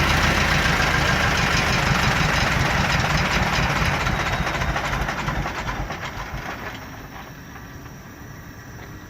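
Bauer 20 cfm high-pressure breathing-air compressor running with a steady mechanical clatter and a fast low pulse. About five seconds in, the sound dies away over roughly two seconds, leaving a much quieter background.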